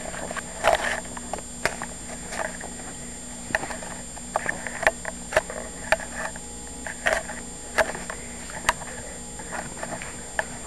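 Small dachshunds playing at close range: irregular short taps and scuffles over a faint steady hum.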